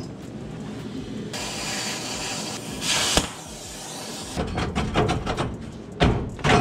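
Oxy-acetylene cutting torch hissing as it cuts steel and throws sparks, with a louder rush of gas about three seconds in that ends in a sharp pop. Knocks and clatter follow from about four and a half seconds in.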